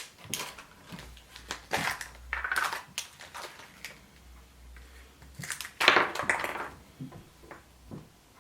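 Chupa Chups surprise egg being opened by hand: irregular crinkling and crackling of the wrapper and shell, with a louder burst of crackling about six seconds in.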